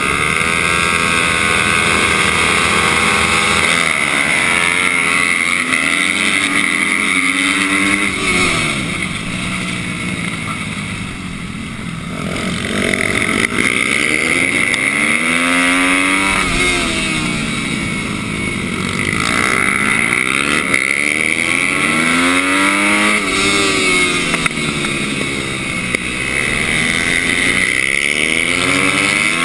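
Onboard sound of a supermoto racing motorcycle's engine, revving hard and repeatedly climbing in pitch, then dropping back as it shifts gear and slows for corners.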